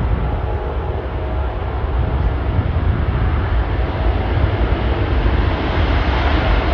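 Jet airliner engines at Heathrow: a steady rushing roar with a deep rumble, slowly growing louder toward the end, with a faint whine coming through in the second half.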